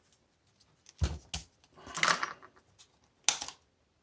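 Knocks, a scrape and a sharp click of plastic pieces being worked loose from a stripped washing machine motor: two knocks about a second in, a scrape around the middle, and a single sharp click near the end.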